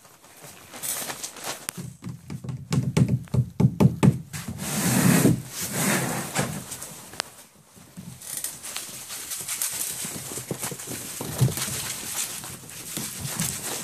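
Five-week-old bully puppies scrambling through shredded paper towels: paper rustling and crinkling, with a dense run of knocks and thumps from paws and bodies about two to four seconds in.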